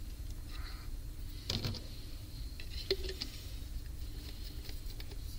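A few light clicks and taps of small plastic bottles being handled on a workbench, over a steady low hum.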